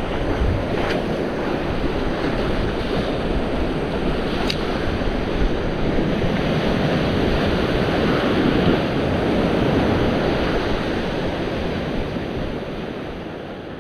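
Sea surf washing against a rocky shore, with wind buffeting the microphone; the sound fades out near the end.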